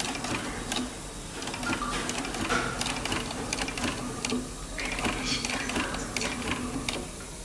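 Industrial sewing machine stitching a shoe upper: a rapid needle-and-feed clatter over a steady motor hum.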